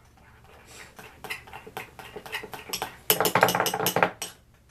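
Spoon stirring thick slime in a bowl, clicking and scraping against the sides in quick strokes that get faster and louder about three seconds in.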